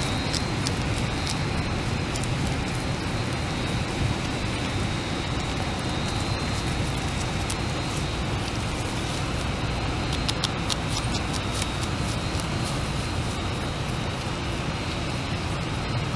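A beaver chewing tree-sapling leaves right at the microphone, its teeth making many quick, sharp crunches and clicks over a steady low background rumble. A faint steady high whine sits behind it.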